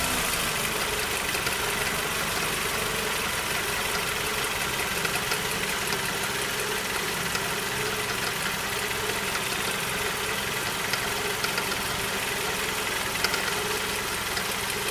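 Suzuki Grand Vitara's J24B 2.4-litre four-cylinder engine running steadily at idle, warm, with occasional sharp ticks over the even running: the abnormal extraneous noise the owner is recording.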